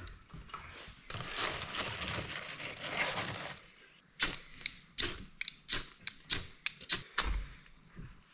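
Wood fire burning after catching, with a rustling hiss in the first half and then a quick irregular run of about a dozen sharp crackles and pops.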